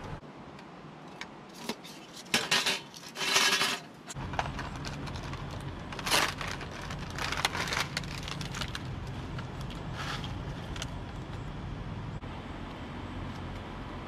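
Small hard objects, metal among them, clinking and jangling in several short bursts. A steady low rumble sets in suddenly about four seconds in.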